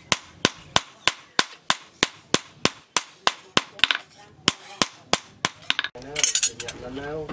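A hand hammer strikes a steel knife blade, cut from a tractor disc, on a small post anvil. The blows come in a steady rhythm of about three sharp, briefly ringing strikes a second. About six seconds in the hammering stops and a louder sound with a wavering pitch takes over.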